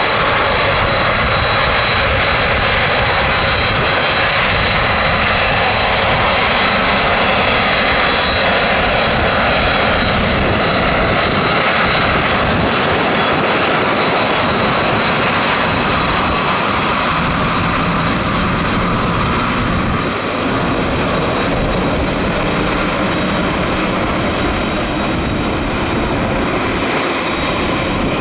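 Jet airliner's engines running as it taxis out: a loud, steady rush with a constant high whine.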